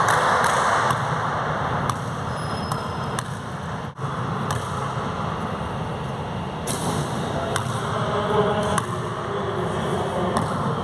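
Scattered single thuds of a basketball bouncing on an indoor court, over a steady background rumble.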